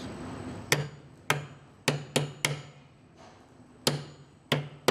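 Hammer striking the back of a steel hammer-on beam clamp, driving its spring-steel tangs into the beam's top edge. Eight sharp strikes, five in quick succession and then three more after a short pause, each with a brief ring.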